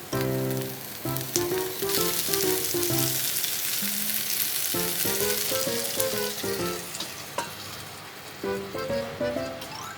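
Food frying in a pan, a steady dense sizzle that eases off near the end, under background music.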